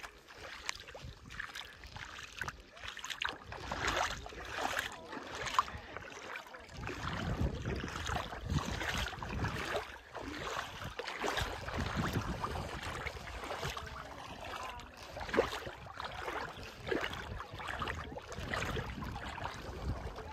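Wind buffeting the microphone in gusts, with a walker's footsteps at an even pace.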